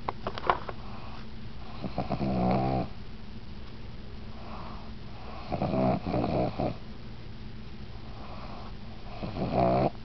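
Pug snoring while awake: three snoring breaths about every four seconds, each lasting about a second.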